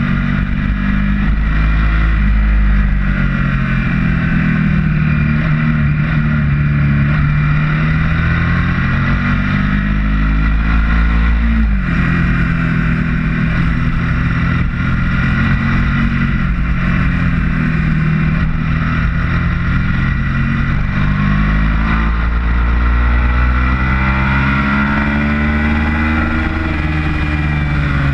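Onboard sound of a Ducati motorcycle's engine at track speed under heavy wind noise. Its pitch rises and falls through the corners and gear changes, with a sudden dip about twelve seconds in, and it climbs steadily near the end as the bike accelerates onto a straight.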